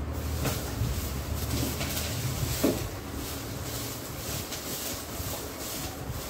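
A spatula stirring and scraping moringa leaves, garlic and dry chillies roasting in a steel pot, with occasional knocks against the pot, the sharpest near the middle, over a low steady hum.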